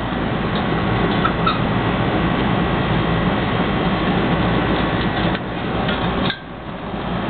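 Mastiffs chewing and crunching raw chicken backs from steel bowls, a dense run of wet chewing with small scattered clicks over a steady low rumble; it drops suddenly quieter about six seconds in.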